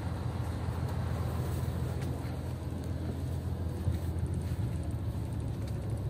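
Scania K113CL coach's rear-mounted diesel engine idling, a steady low rumble heard from inside the passenger cabin.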